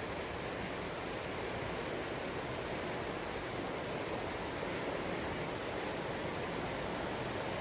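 Mountain creek rushing steadily over rocks.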